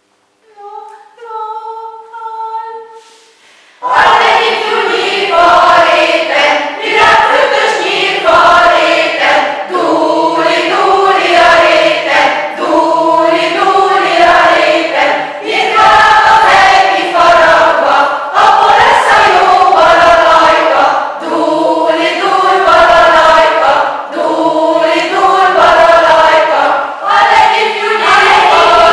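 A small choir of mostly women's voices singing a cappella. A few soft held notes come first, and the full choir comes in loudly about four seconds in.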